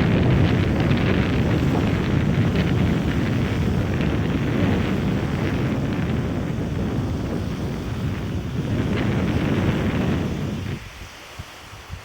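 Strong wind buffeting the microphone: a heavy, continuous rumble that eases off sharply near the end, then comes back in short gusts.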